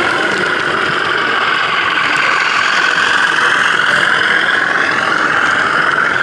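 Model railway locomotive running along the track: a steady mechanical whine with gear noise, its pitch rising slightly about halfway through.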